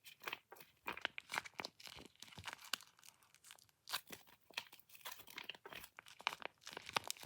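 Crinkly plastic packaging of a taba squishy being handled and opened: a dense run of irregular crackles and rustles.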